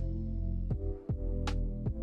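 Background music: sustained pitched notes over a deep bass, with sharp drum hits on a slow, steady beat.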